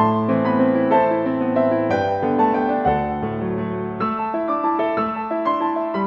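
Instrumental lo-fi jazz piano music: a piano playing chords and a melody line.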